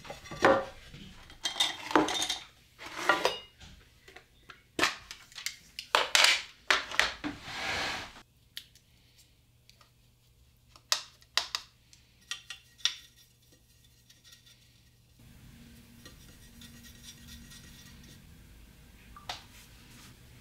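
Painting supplies handled on a wooden desk: hard clinks, knocks and scrapes as a watercolour paint set and palette are moved and a brush works in the pans. A dense run of sharp clatters for the first eight seconds, then only a few scattered clicks.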